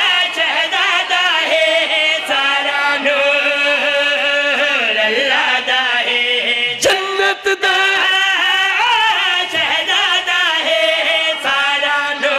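A man's voice chanting a qaseeda, a devotional praise poem, in long wavering melodic lines held without break. There is a brief click about seven seconds in.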